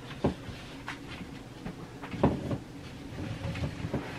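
A handful of short, dull knocks and bumps over low room noise, the loudest a pair about two seconds in, like things being handled or a cupboard or door being moved off to the side.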